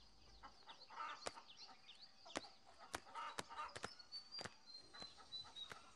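Quiet village ambience: small birds chirping faintly, with scattered light clicks and soft footsteps, and a thin held whistle from a bird in the last two seconds.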